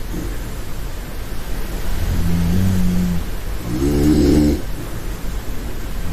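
A sleeping woman snoring. A steady low drone of a snore about two seconds in is followed by a rougher, wavering snore around four seconds.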